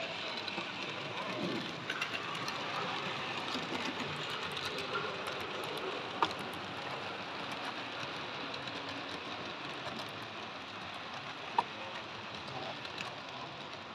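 Steady background hubbub of an exhibition hall, distant voices mixed with the running of 00 gauge model trains on the layout. Two sharp clicks stand out, about six seconds in and again near the end.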